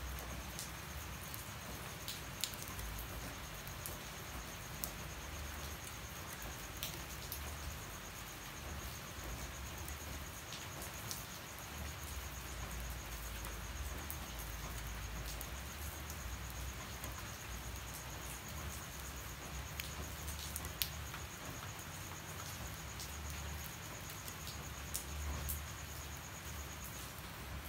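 Rain falling steadily, with scattered sharper drops striking nearby surfaces, and a steady high-pitched insect trill that stops near the end.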